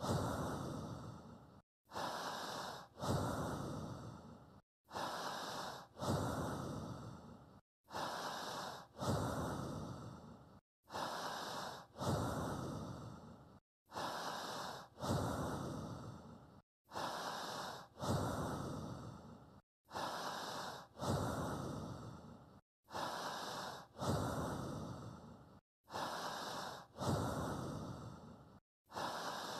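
A recorded human breath looped at a steady pace, about once every three seconds: a shorter breath, then a louder, longer one that fades out, with a brief clean silence before each cycle, to pace the listener's breathing.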